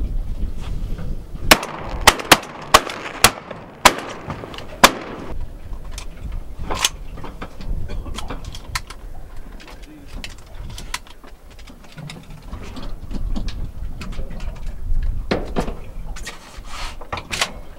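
A rapid volley of about seven shotgun shots from several hunters firing together at sea ducks, starting about a second and a half in and over within about three and a half seconds.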